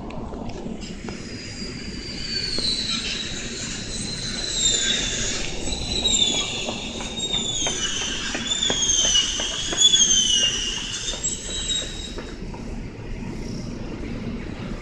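Train wheels squealing on the rails as a train moves through the station: repeated high-pitched squeals that slide down in pitch, over a low rumble, with clicking of wheels over rail joints in the middle. The squealing dies away near the end.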